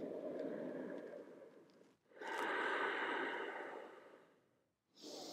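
Slow, deep breathing of a person holding a yoga pose: two long breaths of about two seconds each, with a third beginning near the end.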